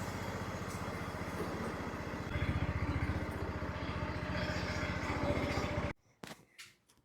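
Riding lawn tractor's small engine running with an even pulse, getting louder about two seconds in, then cutting off suddenly near the end.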